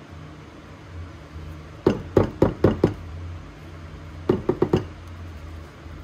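A rubber scraper knocked against the rim of a casserole dish to shake off pudding: five quick knocks about two seconds in, then four more at about four and a half seconds.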